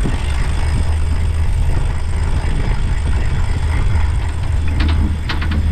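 Sailboat's inboard engine running steadily under way, with wind and water hiss over it. Near the end comes a quick run of clicks from a cockpit sheet winch being worked.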